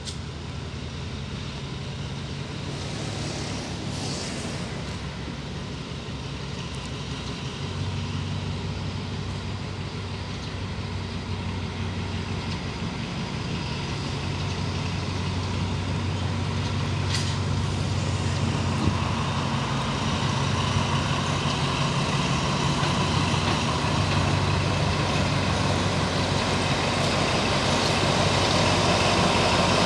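Alsthom AHK diesel-electric locomotive running with a steady low engine hum as it reverses slowly toward the listener, growing steadily louder.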